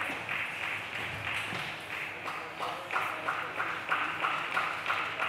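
Table tennis ball clicking in a quick, even rhythm, about three to four hits a second, with higher and lower clicks alternating in the second half.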